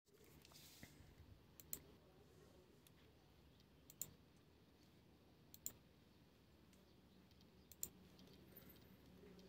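Near silence with faint computer mouse clicks, four times, some in quick pairs, over a low steady hum.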